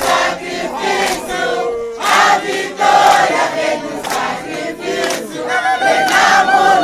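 Crowd singing and chanting together, with hand claps.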